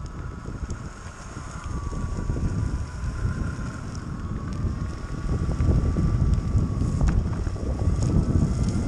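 Electric mountainboard riding: the dual 6384 brushless motors on belt-and-pulley drive give a whine that drifts up and down in pitch with speed. Under it is a heavy rumble of wind on the board-mounted camera's microphone and pneumatic tyres rolling on asphalt, growing louder about halfway through.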